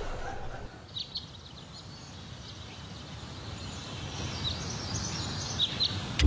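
Outdoor ambience: a steady low background noise with a few short, high chirps about a second in and again near the end.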